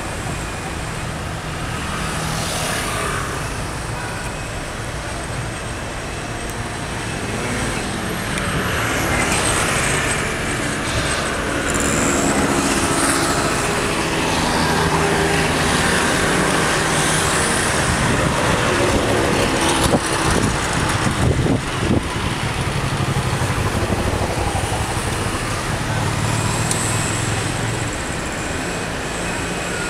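Slow queued traffic: car engines idling and creeping forward, their hum swelling and fading as vehicles pull up close. A few sharp knocks come about two-thirds of the way through.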